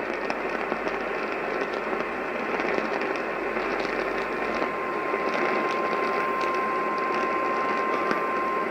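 Static-laden AM radio reception hissing under a weak signal. About halfway through, a single steady alert tone comes in and holds: an Emergency Alert System attention tone being relayed.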